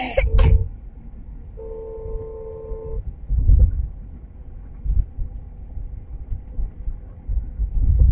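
Road noise and low rumbling surges of wind buffeting a phone microphone from a moving vehicle on a highway, with a brief loud hiss right at the start. A steady electronic beep tone, like a phone tone, sounds for about a second and a half, between roughly 1.5 and 3 seconds in.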